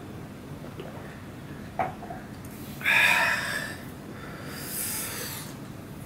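A man sniffing hard through his nose: one loud sniff about three seconds in, then a longer, softer one a second or so later, after a faint click.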